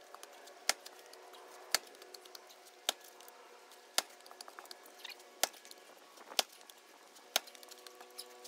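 Double-bit True Temper Kelly Works Flint Edge axe striking a round of poplar with short, controlled strokes: seven sharp knocks, about one a second. The tough poplar has not split yet.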